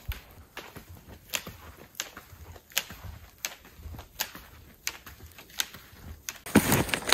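Footsteps crunching through deep snow, a sharp crunch about every three-quarters of a second at an even walking pace. Near the end the crunching suddenly becomes much louder and closer.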